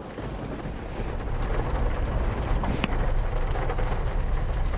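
Steady heavy rain, an even hiss with a low rumble underneath, and a single click near the middle.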